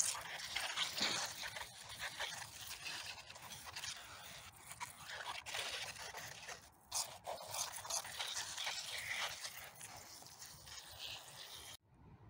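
Irregular crunching and scraping of snow and charred cardboard debris being handled close to the microphone, with scattered sharp crackles. It cuts off suddenly near the end.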